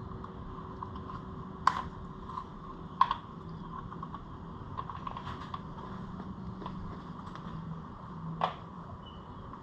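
Light clicking and handling noises of hands working on an ATV's plastic parts, clips and hoses, with three sharper knocks: one about two seconds in, one about three seconds in and one near the end.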